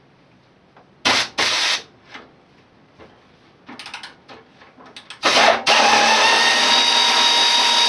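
Pneumatic socket wrench (air gun) run in two short bursts about a second in, then a few quick blips, then a long steady run of about three seconds near the end.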